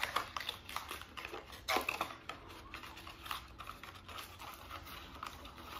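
A small cardboard box being opened and handled: irregular clicks, taps and scrapes of long fingernails on the cardboard, the loudest about two seconds in.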